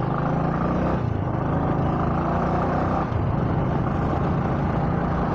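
A road vehicle's engine running steadily on the move: a low, even hum with road and wind noise over it.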